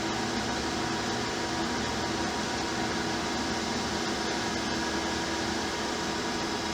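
Cincinnati Milacron Model DR centerless grinder running, a steady machine hum with a hiss from its spinning grinding wheel.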